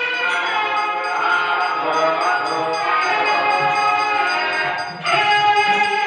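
Music: a sustained melody with gliding, wavering notes over light, regular percussion ticks, dipping briefly about five seconds in before carrying on.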